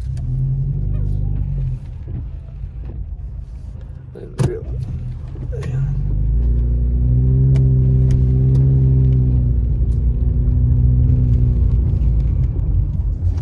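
Car engine heard from inside the cabin as the car turns and drives off, a steady hum that grows louder from about six seconds in. A single sharp click sounds about four seconds in.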